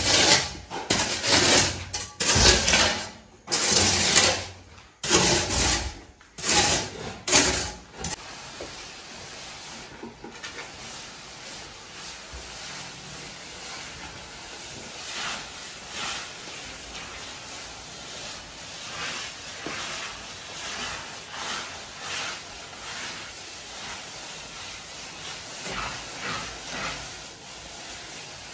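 Hand float being rubbed over fresh cement render in repeated scraping strokes, the finishing pass on a plastered wall. The first several seconds hold much louder rasping strokes close by; after that the strokes go on softer, about one a second in places, over a steady hiss.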